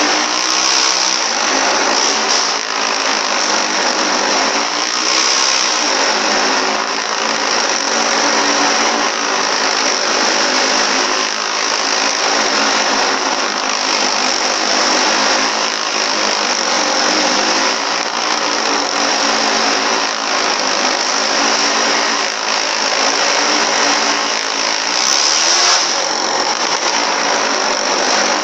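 Motorcycle engines of a wall-of-death show running hard inside the barrel, loud and continuous, their revs rising and falling over and over as the bikes circle.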